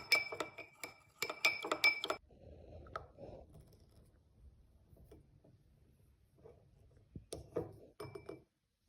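A spoon clinking against a glass in quick repeated strikes, each leaving a bright ringing note. There is a run of about two seconds at the start and a shorter one of about a second near the end.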